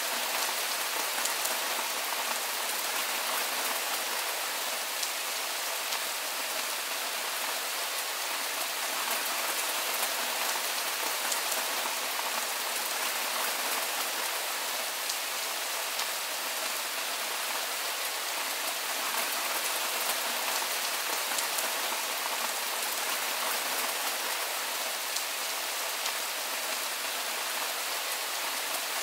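Steady rain falling: an even hiss with scattered light drop ticks, unchanging throughout.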